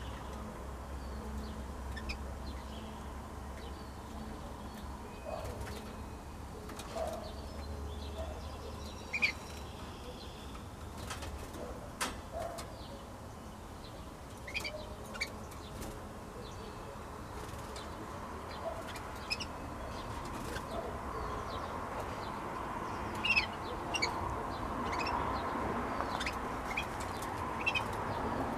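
Young hen canaries in a wire flight cage giving short, scattered chirps and call notes, with wing flutters and sharp taps as they hop and fly between perches.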